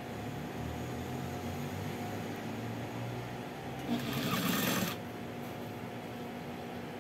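Industrial sewing machine: its motor hums steadily, and about four seconds in the machine stitches for about a second, then stops.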